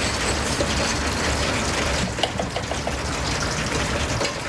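Oyster omelette frying on a hot griddle, a steady sizzling hiss.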